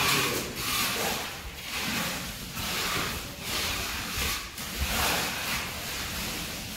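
Steel hand trowel scraping across a wet cement floor as red oxide is spread. It makes gritty, hissing strokes about once a second.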